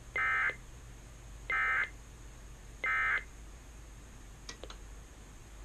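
Emergency Alert System end-of-message (EOM) code from an EAS encoder-decoder: three identical short, buzzy data bursts about a second and a half apart, marking the end of the relayed alert. A couple of faint clicks follow near the end.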